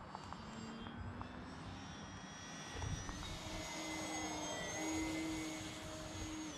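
Electric motor and propeller of a Multiplex AcroMaster Pro RC plane whining in flight. The pitch steps up about three seconds in as the throttle opens, then holds steady.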